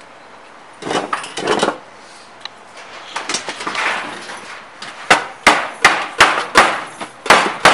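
Slammer tool striking a copper disc down into a copper moonshine-still cap piece to seat it tight. After some handling clatter, about seven sharp strikes come in the last three seconds, two or three a second.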